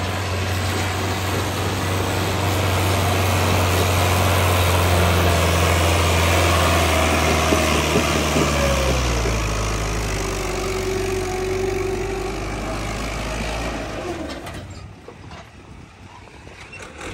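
Diesel farm tractor engine running hard under load as it pulls a double disc harrow through dry soil, with a steady low hum. It passes close by: the engine note drops after about eight seconds, and the sound fades near the end as the tractor moves away.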